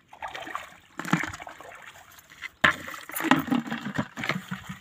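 Water splashing and sloshing, with two sharp knocks, about one and two and a half seconds in.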